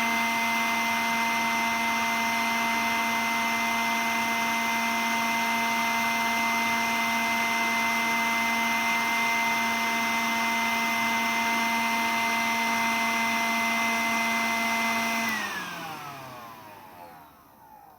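Cordless vacuum cleaner running steadily, a high motor whine over airflow hiss; about fifteen seconds in it is switched off and the whine falls in pitch as the motor spins down.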